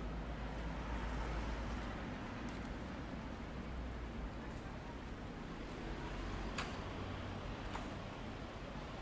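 Steady city street ambience: a low traffic rumble and hum, with a couple of faint clicks in the second half.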